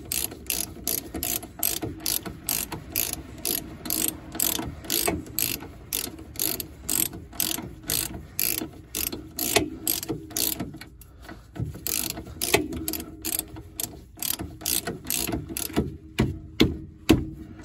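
Socket ratchet wrench clicking steadily, about three to four clicks a second, as a suspension bolt is run down and tightened. Near the end the clicks become sparser and uneven.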